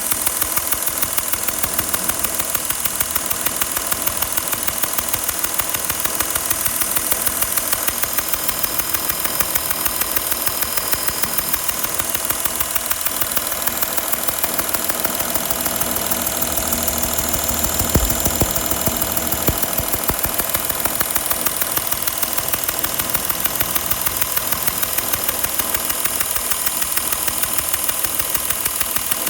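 2012 Porsche Cayenne's 3.0 V6 diesel engine running at idle with a rapid, even ticking clatter, the bad noise whose cause the owner does not know. A couple of thumps come about two-thirds of the way through.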